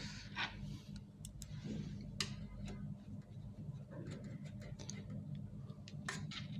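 Scattered light clicks and ticks of printer parts being handled and fitted during repair work, a sharper one about two seconds in and a cluster near the end, over a low steady hum.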